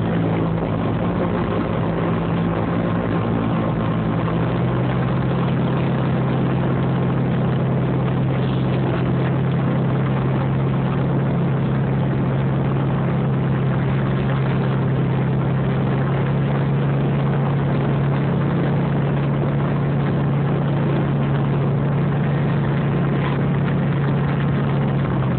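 A Piper Chieftain's twin turbocharged six-cylinder Lycoming engines and propellers at takeoff power, heard from inside the cabin as a loud, steady drone. The drone shifts in pitch a few seconds in, then holds steady.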